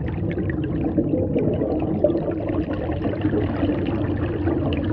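Muffled, steady water sound with many small bubbling pops scattered through it.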